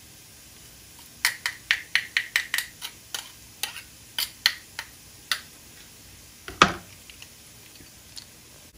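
Metal garlic press tapped against the rim of a frying pan to knock out minced garlic: a quick run of about fifteen sharp taps over some four seconds, then one louder knock and a few faint ticks.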